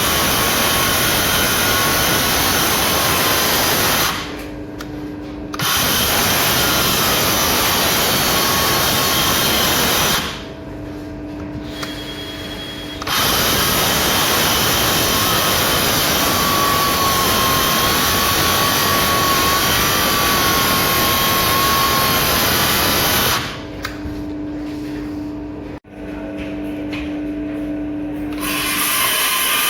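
Cordless hammer drill boring into concrete in long loud runs, stopping three times for a second or more.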